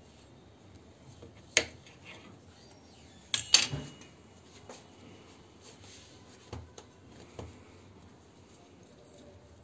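A few sharp clicks and a short clatter of a plastic pizza-cutter wheel against a stone countertop as a log of wheat dough is cut, loudest about three and a half seconds in, followed by a few fainter taps.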